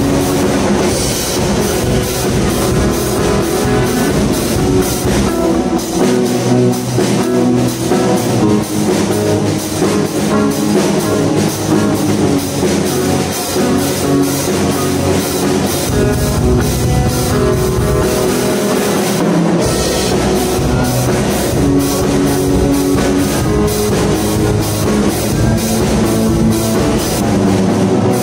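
Tama drum kit with Paiste cymbals and an electric guitar playing a rock-style jam together, with a steady driving beat and cymbals throughout. The deepest low end thins out for a stretch in the middle, then comes back in full.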